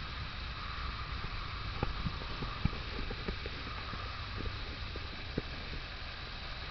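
Small wood fire crackling, with irregular sharp pops from about two seconds in, over a steady hiss of rain.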